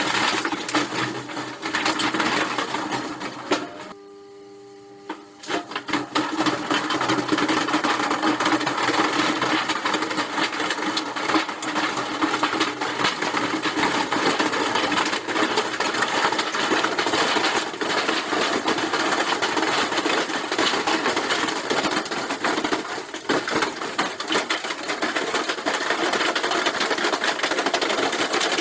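Washing machine running hard and shaking itself apart, with rapid, continuous clattering and banging over a steady motor hum. The noise drops away briefly about four seconds in.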